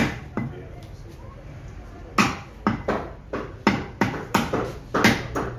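Heavy butcher's cleaver chopping through meat and bone on a round wooden chopping block: a hard chop at the start and another just after, a pause, then a quick run of about nine chops, a little over two a second.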